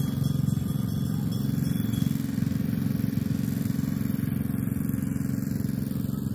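A small engine running steadily, an even low hum that does not change.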